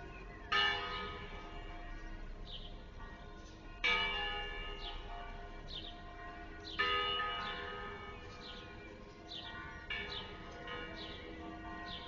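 Church bell tolling slowly: three loud strokes about three seconds apart, each left ringing and dying away, then softer strokes near the end.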